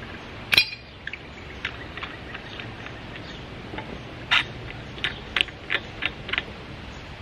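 Metal clinks and knocks from a pipe wrench and rusty threaded iron pipe being worked: one sharp clank about half a second in, then a run of lighter ringing clinks near the end, about three a second.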